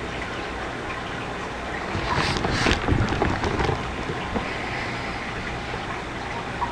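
Steady low hum and hiss of a home-recording microphone's background noise. A louder, noisy stretch lasts a second or two, about two seconds in.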